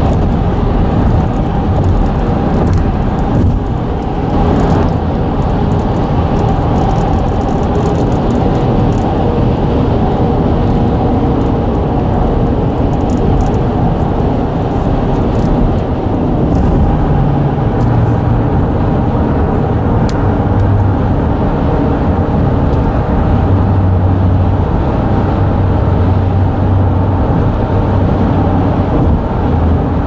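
Tyre and road noise inside a moving car on a concrete highway and an elevated ramp: a steady low rumble, with a deeper drone in the second half and a few faint ticks.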